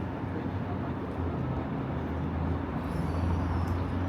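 Steady low rumble and hum of railway station ambience, with a faint high whine about three seconds in.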